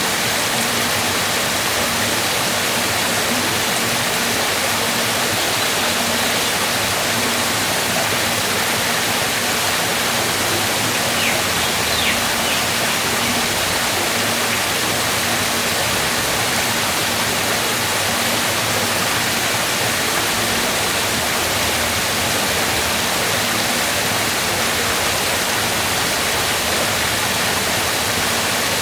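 Waterfall: water falling and rushing steadily, without a break.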